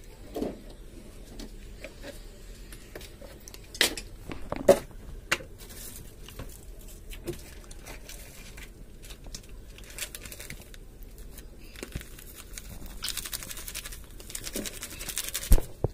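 Light kitchen handling noises: a few soft knocks a few seconds in, and a short stretch of crinkling rustle near the end, closing with a single thump.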